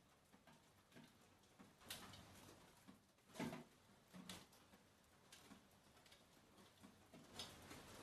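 Near silence, with a few faint short ticks.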